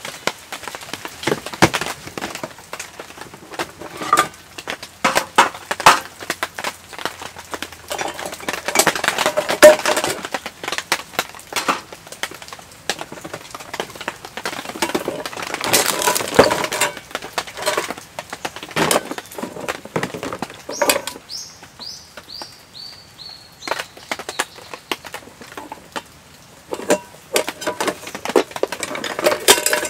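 Irregular knocks, cracks and clinks, as of things being handled, with a short run of high chirps falling in pitch about two-thirds of the way through.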